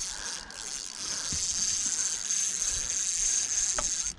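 Spinning reel buzzing with a steady high-pitched whir under the strain of a hooked rainbow trout. The buzz grows louder about a second and a half in and cuts off suddenly at the end.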